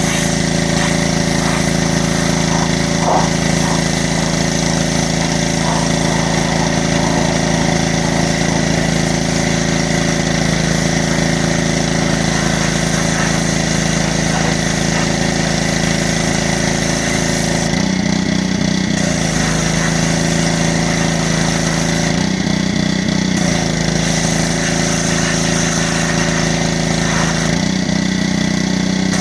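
Pressure washer running steadily, its motor humming under the hiss of the spray. Three times near the end the hiss drops out for a second or so and the motor note shifts.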